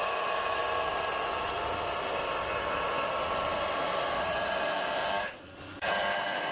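Granite edge-grinding machine's water-cooled abrasive wheel grinding along the edge of a black granite slab: a steady, high grinding whine with several held tones, dipping briefly about five seconds in.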